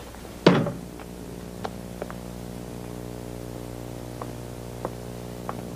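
Steady electrical hum with a short vocal sound about half a second in and a few faint ticks.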